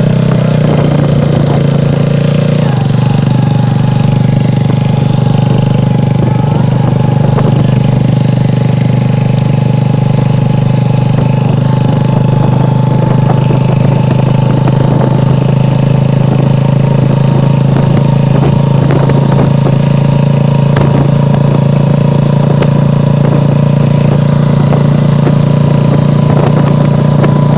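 Motorbike engine running at a steady, even note throughout, with small rattles and knocks over it.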